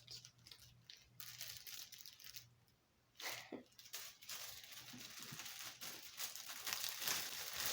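Packaging being handled, crinkling and rustling irregularly, with a short pause partway through and then steadier, louder rustling near the end.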